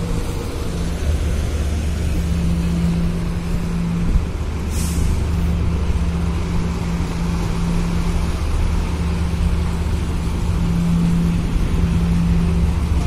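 Tugboat's diesel engines running with a steady low drone. A brief hiss comes about five seconds in.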